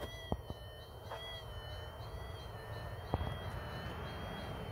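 Minelab SDC 2300 gold detector sounding its continuous, slightly wavering tone as the coil is swept back and forth over a faint buried target. A few short knocks come through, about a third of a second in, half a second in and near three seconds.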